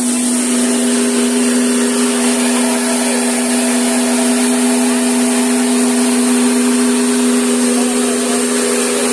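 Small electric combined rice mill (huller-polisher) running steadily under load, milling rice, with a constant hum over a steady whirr.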